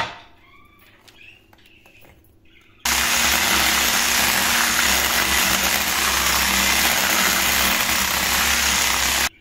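Electric hand mixer switched on about three seconds in, running steadily at an even speed as it beats a liquid cake batter, then switched off just before the end. A short knock right at the start.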